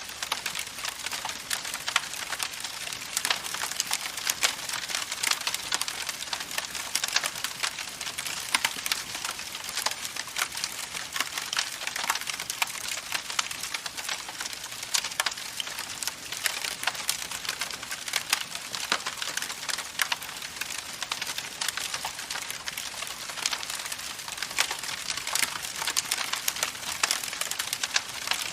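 Wood fire crackling steadily: a continuous hiss packed with many small, irregular snaps and pops.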